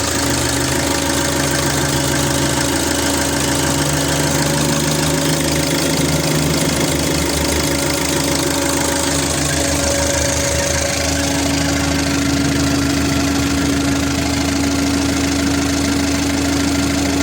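2005 Peugeot Boxer's 2.0 HDi (RHV) four-cylinder common-rail diesel idling steadily, running again after a crank-no-start fault was fixed. A steady hum in the engine note grows stronger about eleven seconds in.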